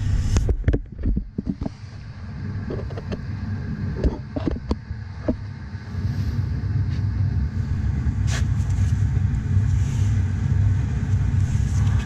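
A steady low rumble with scattered sharp clicks and taps of thermostat wires and tools being handled at a furnace's control board.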